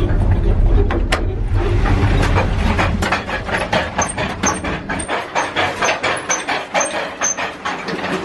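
Indian Pacific passenger train carriage rattling and clacking as it runs on the rails. A deep rumble fades about three seconds in, leaving rapid rattling knocks several times a second with faint high squeaks; there is a single sharp click about a second in.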